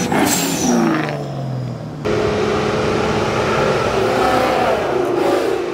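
Car engine falling in pitch over the first two seconds, then cut off suddenly and replaced by another car engine running at a fairly steady pitch.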